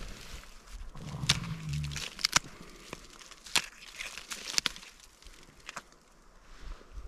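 A knife prying and peeling dead bark and rotted wood off an Armillaria-rotted conifer root: irregular sharp cracks and snaps of splintering bark, fewer after about six seconds.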